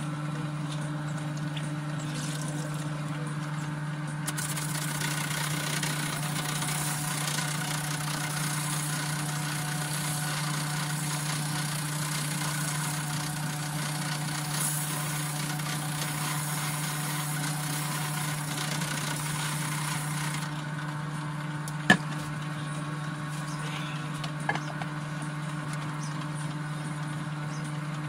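Electric drill running steadily with a sanding disc fitted, a hiss rising over it through the middle stretch as the abrasive works the part. Two sharp clicks come near the end.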